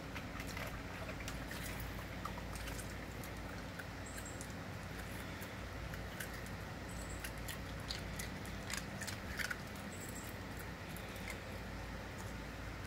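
American Eskimo dog dunking for ice cubes in a bowl of ice water and chewing them: scattered clicks and crunches of ice with small wet splashes, the loudest about nine seconds in, over a steady low hum.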